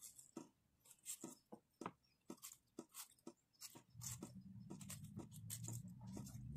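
Small knife cutting the skin off pieces of ripe pineapple held in the hand: faint, irregular crisp clicks, a few a second. A faint low hum comes in about four seconds in.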